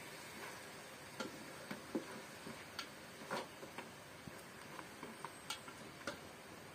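Spoon stirring in a cooking pot, knocking against its sides in about a dozen irregular light clicks.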